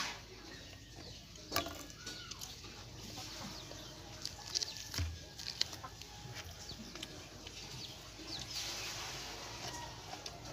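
Chickens clucking faintly in the background, with a few light clicks and taps.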